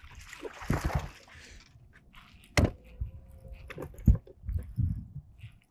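Handling noise from reeling in a hooked bass on a baitcasting rod and reel: a stretch of scraping noise in the first second or so, a sharp click about two and a half seconds in, and a few low knocks near the end.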